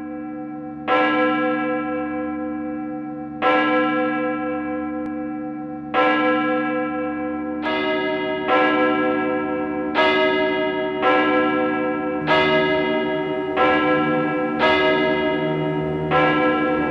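Church bells ringing: single struck strokes that ring on and fade, about every two and a half seconds at first, then coming faster, roughly one a second, from about eight seconds in, with a second, lower-pitched bell joining.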